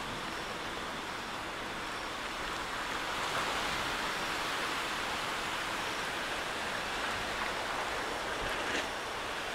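Steady heavy rain during a thunderstorm, an even dense hiss.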